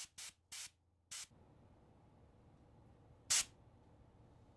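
Can of compressed air blowing short puffs through its straw nozzle to clear dust from a laptop's internals. There are four quick bursts of hiss in the first second and a half, then a louder burst about three seconds in.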